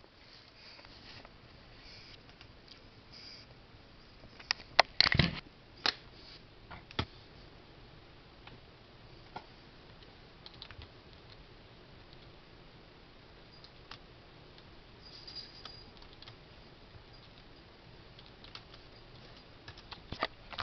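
Scattered light clicks and knocks over low room noise, with a cluster of louder knocks about five seconds in and more clicks just before the end.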